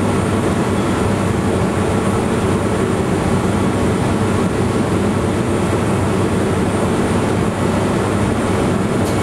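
Monte Generoso electric rack-railway car running steadily uphill, heard from on board: a continuous low running noise from the motors and rack drive.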